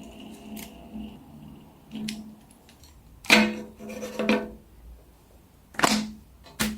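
A handful of short handling noises, five in all, as fidget toys are picked up and moved about. The loudest comes about a third of the way in.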